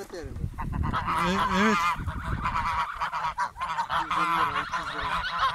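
A flock of domestic geese honking and cackling, many calls overlapping without a break, loudest about a second in.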